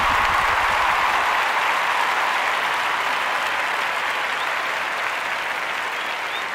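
Audience applause, a dense even clapping that slowly fades toward the end.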